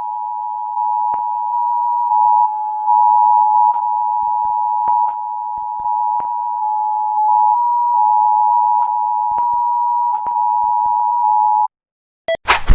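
Emergency Alert System attention signal: a steady two-tone alarm that holds for nearly twelve seconds, its loudness stepping up and down, with faint clicks scattered through it. It cuts off abruptly, and loud knocks follow in the last half second.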